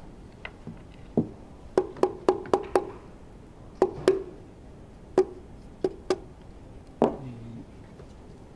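A mallet tapping a connecting rod at the crankshaft of a Honda RA100E V10 to free the rod and piston for removal. About a dozen sharp knocks come in short quick groups, each with a brief metallic ring.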